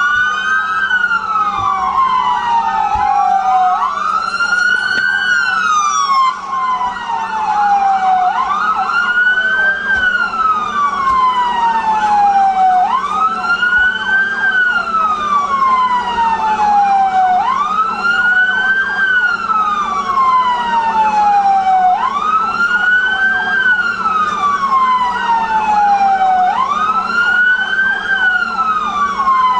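Police car siren in a slow wail, each cycle climbing quickly and sliding back down, about every four and a half seconds. A second siren wails out of step with it for the first few seconds.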